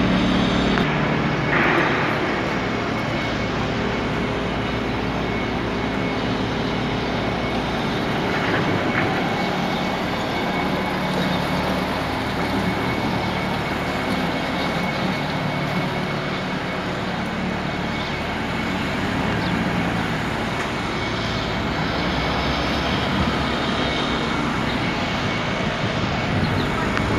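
Large diesel forklift's engine and other heavy plant machinery running steadily, a continuous mechanical drone.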